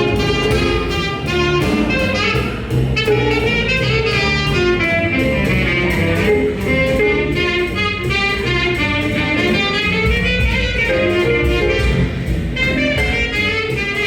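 Live band playing an up-tempo jazz instrumental passage over a steady beat, with no singing.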